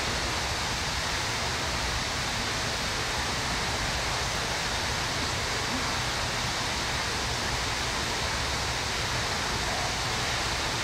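Steady, even rushing noise that does not change and has no distinct events in it.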